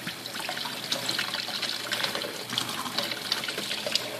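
Kitchen faucet running lightly into a stainless steel sink, the stream splashing over hands as a hard-boiled egg is peeled under it, with small irregular splashes and ticks through the steady flow.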